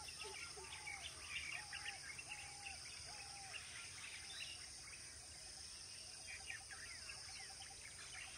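Birds chirping and calling over a steady high insect drone, with a repeated arched whistle note about twice a second in the first half and short rapid trills in the second half.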